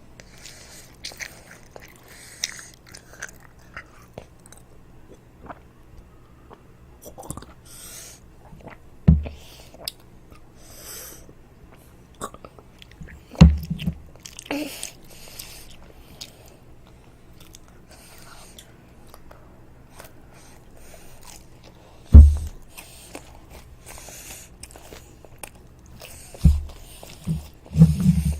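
Close-up eating sounds of toast being bitten and chewed, with small crunchy crackles throughout. Several short, loud, low thumps come in between, the loudest at about a third of the way in, halfway, and in the last few seconds.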